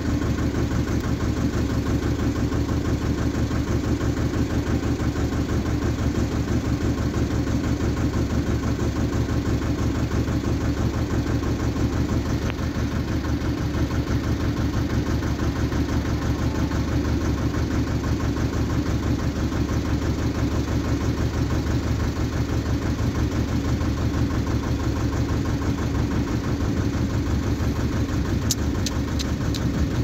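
Boat engine running steadily, an even throb with no change in speed, with a few light clicks near the end.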